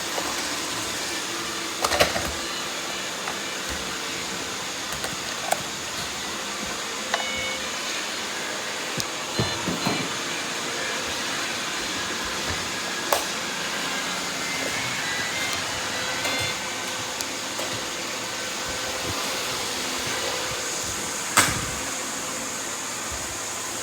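Robot vacuum running, a steady motor and brush noise, with a few sharp knocks scattered through it, the loudest near the end.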